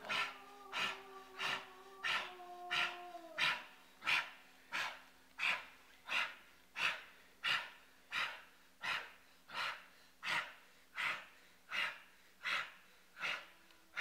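A person's loud, rhythmic panting breaths, about three every two seconds and very even. For the first three and a half seconds a steady low hum with sliding higher tones sounds underneath, then stops.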